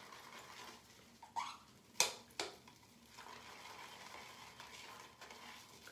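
Shaving brush being worked in a lathering bowl to build lather from shave soap, with three sharp clicks of the brush against the bowl about two seconds in, then quiet swishing.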